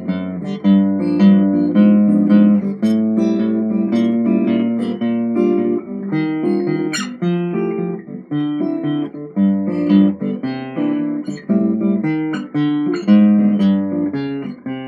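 A 1907 Martin 00 acoustic guitar, lightly built with a spruce top and mahogany back and sides, being played as a string of jazz-style comping chords. Each chord is struck and left to ring, with a new one about every half second to a second and one sharp accent about seven seconds in.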